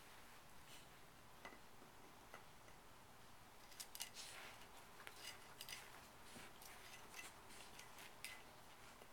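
Faint clicking and scraping of a three-month-old pit bull puppy's teeth gnawing a large chew bone, a quick irregular run of clicks from about four seconds in until near the end.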